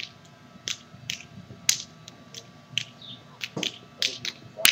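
About ten short, sharp clicks or snaps at irregular intervals, a little under a second apart, over a low steady background.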